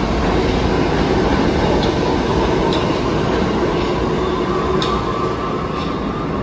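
R68A subway train running past the station platform: a steady rumble with a few sharp clicks of the wheels over rail joints, easing slightly near the end as the last car goes by. A thin higher tone joins about five seconds in.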